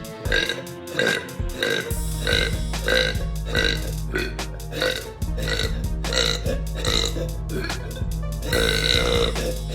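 A girl's burps, short and repeated about twice a second on an even beat, set over music; a low steady bass comes in about two seconds in.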